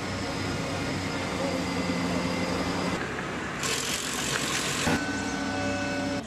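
Road vehicle noise: engines running steadily, with a loud hiss lasting about a second past the middle.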